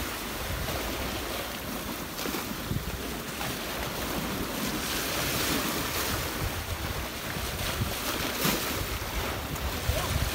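Sea waves washing and breaking against a rocky shore, with wind buffeting the microphone.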